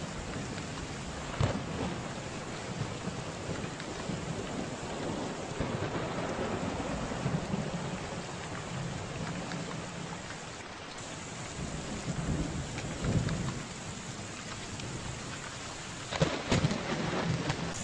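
Steady heavy rain with rolling thunder, and a few sharp thunder cracks about a second and a half in and again near the end.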